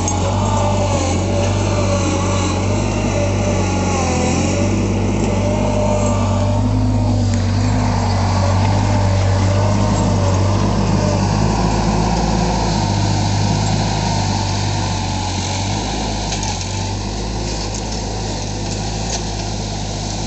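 A small engine running steadily, with a constant low hum and a slightly wavering pitch.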